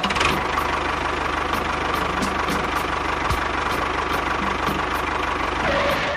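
A motor running steadily, with a fast, even low pulse like an engine at idle.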